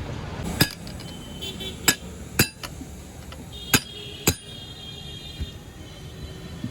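Five sharp metallic clanks at uneven intervals, from metal tools striking metal during tyre-changing work.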